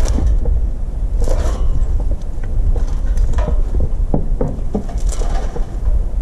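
Scattered knocks and clanks from a steel cattle chute with a calf held in its headgate, over a steady low rumble.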